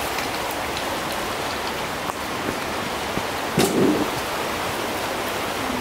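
Steady rush of the Jordan River's flowing water along the bank, with a brief louder noise about three and a half seconds in.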